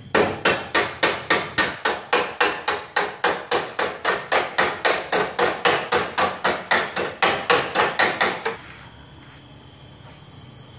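Hammer beating the sheet-steel rear body panel of an old car under restoration: fast, even metallic blows, about three and a half a second, that stop abruptly about eight and a half seconds in, leaving only a faint steady background noise.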